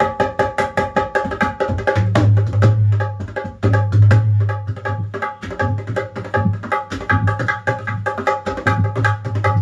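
Shisham-wood dholak with 36-bolt nut-and-bolt tuning played by hand in a fast rhythm. Crisp strokes on the treble head ring at a steady pitch, and in several stretches, from about two seconds in, deep notes from the bass head join them.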